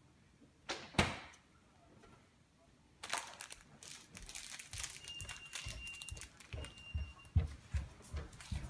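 A refrigerator door is shut with two knocks about a second in, the second the louder. From about three seconds there is clattering and rustling, then heavy thuds of bare footsteps on the floor near the end.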